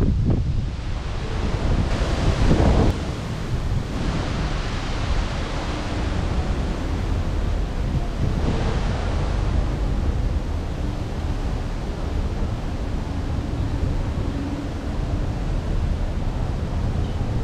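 Wind buffeting the camera's microphone: a steady rumbling hiss with a stronger gust about two to three seconds in that cuts off sharply.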